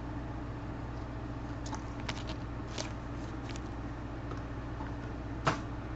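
Steady low background hum with a few faint clicks and rustles of trading cards being handled, and one sharper click about five and a half seconds in.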